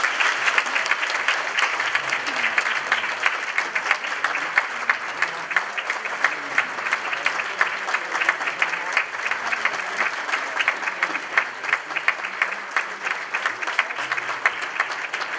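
Audience applauding: many people clapping at once in a dense, steady patter that keeps up without a break.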